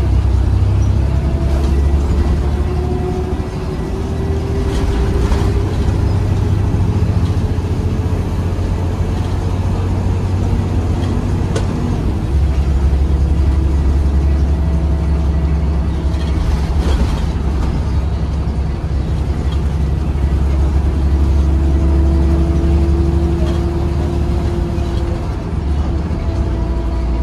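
Volvo B7RLE single-deck bus under way, heard from inside: the six-cylinder diesel engine drones steadily, with whines that rise as it pulls away and a few knocks and rattles from the body.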